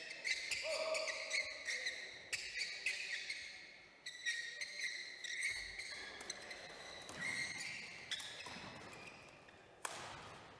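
Badminton hall sounds: court shoes squeaking on the sports floor and shuttlecocks being struck, a run of short squeaks and sharp clicks, with one louder hit near the end.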